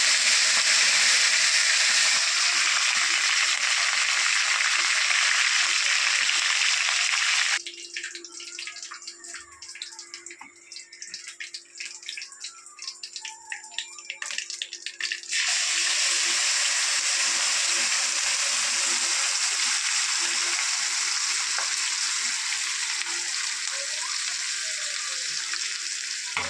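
Food sizzling loudly in hot oil in a kadai as curry leaves and chillies fry. About eight seconds in it drops to quieter scattered crackling. A little past halfway the loud sizzling returns as masala paste goes into the hot oil, then slowly fades.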